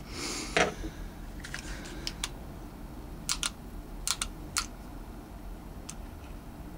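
Small sharp clicks and taps, irregular and about nine in all, from hands handling a Grendel P12 pistol frame and its parts, with a short rustle at the start.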